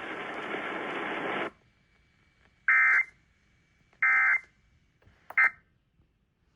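Radio hiss that cuts off about a second and a half in, then three short bursts of Emergency Alert System end-of-message data tones, the buzzy warbling digital SAME code, about a second apart, signalling the end of the alert; the third burst is shorter.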